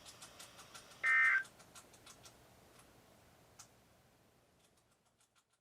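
NOAA weather radio speaker after the test broadcast: a faint hiss with light irregular clicking. About a second in comes one half-second burst of high digital data tones, the EAS end-of-message code that closes the weekly test.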